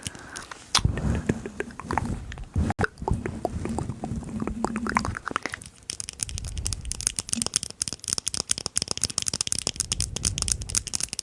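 Close-up rubbing and scratching right against a microphone. For the first few seconds there is low rumbling mixed with irregular clicks. From about six seconds in it turns to a dense, crackly, hissy scratching.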